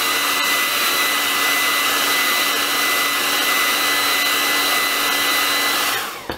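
Hair dryer running steadily with a high whine, blowing hot air onto a tablet's screen edge to soften the glue under the glass. Near the end it is switched off and winds down.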